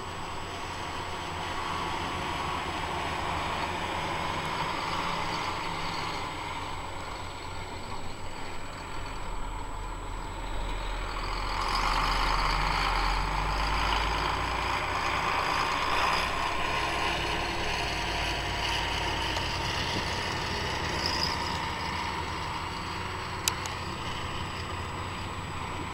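Sugar beet harvesting machinery running steadily, growing louder for a few seconds around the middle. A single sharp click comes near the end.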